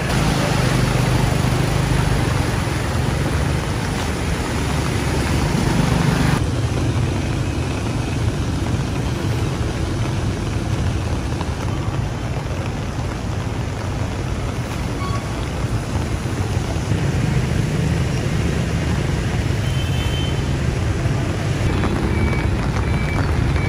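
Motorbikes and cars driving through flooded streets: engines running and water splashing and surging around the wheels, over a steady wash of traffic noise. The sound changes abruptly about six seconds in.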